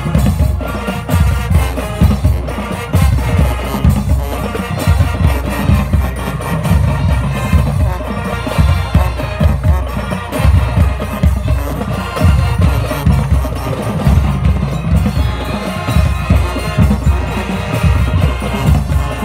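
High school marching band playing loudly: brass with sousaphones over a drumline of snare and bass drums, with marimbas in the front ensemble.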